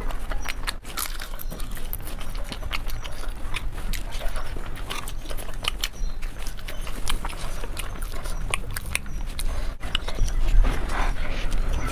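Mukbang eating sounds: chewing with a stream of irregular wet mouth clicks and smacks, over a low steady hum.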